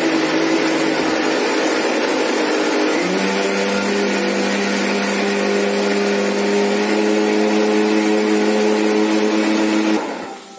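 Electric mixer grinder running with a loaded jar, grinding tamarind, coconut, onion and spice masala to a coarse paste. Its motor pitch steps up about three seconds in, and it stops shortly before the end.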